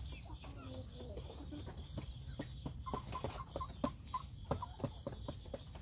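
Chickens clucking softly: a few low wavering notes in the first second or so, then a quick, uneven run of short clucks from about two seconds in.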